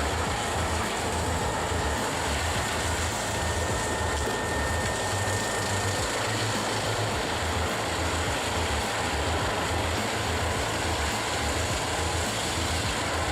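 Large industrial wood chipper or grinder at work: a heavy diesel engine running steadily under load beneath a continuous wash of chipping and grinding noise.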